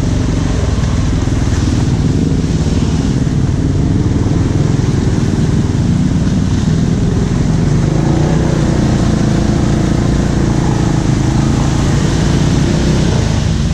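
ATV engine running steadily, its pitch wavering up and down a little in the second half as the throttle changes.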